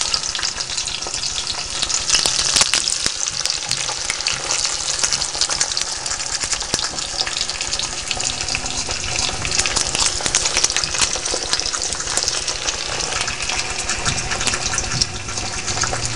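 Salmon portions sizzling and crackling in hot canola oil as pieces are laid in: a steady hiss thick with sharp spits and pops. A few ice crystals left on the thawed fish add to the spattering.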